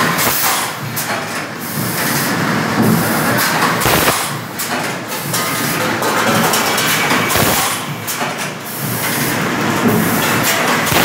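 Four-cavity fully automatic PET stretch blow moulding machine running: loud, steady machine noise, with a sharp knock about four seconds in and another about three and a half seconds later.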